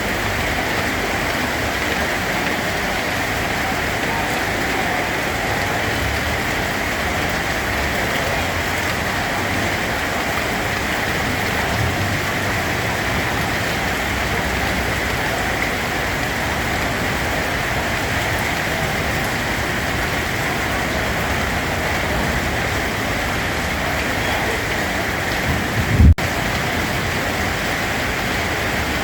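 Steady, even rain falling, with no change in intensity. A brief low thump about 26 seconds in, the loudest moment, followed by a split-second dropout, with a fainter low knock earlier.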